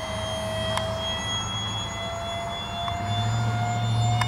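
Whine of a radio-controlled J-10B jet's 70 mm five-blade electric ducted fan in flight, a steady high tone with overtones whose pitch sags slightly and then rises a little near the end. A low hum grows louder about three seconds in.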